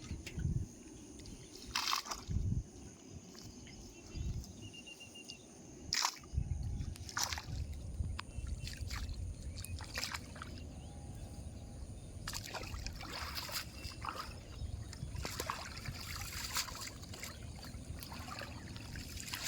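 Water sloshing and trickling, broken by irregular sharp splashes that come thick and fast in the second half.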